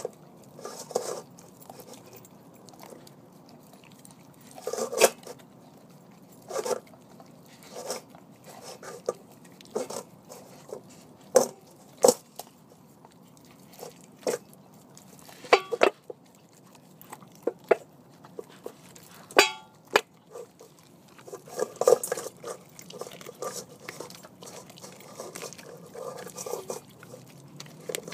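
A vizsla biting and chewing a raw chicken thigh, with irregular wet crunches and sharp bites spaced a second or two apart.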